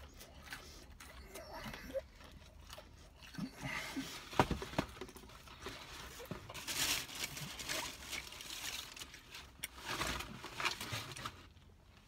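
Close-up eating sounds of a man chewing fried chicken tenders, with small clicks and smacks. A paperboard food box rustles in two longer stretches, about seven and ten seconds in.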